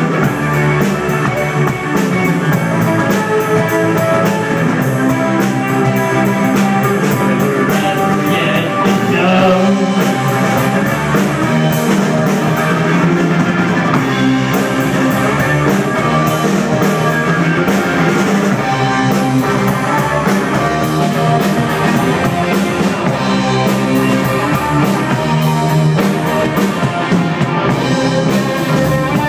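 Live rock band playing loud and continuously: distorted electric guitar, electric bass and a drum kit.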